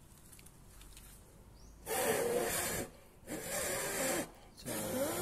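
A person blowing hard three times into the oil filler opening of a Suzuki Raider 150 engine, each a rushing blow of about a second starting about two seconds in. He is pushing air into the crankcase so the old oil drains out faster.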